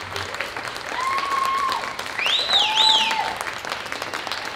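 Audience applauding, with a few held calls over the clapping and two quick high rising-and-falling cries about two and a half seconds in, the loudest moment.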